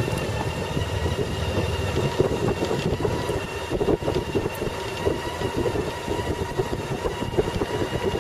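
Honda Gold Wing motorcycle engine running as the bike rolls slowly along, a steady low rumble with a faint steady whine above it.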